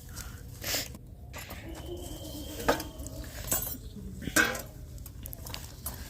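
Spoons clinking and scraping against metal dishes during a meal of noodles, with scattered light clinks a second or so apart.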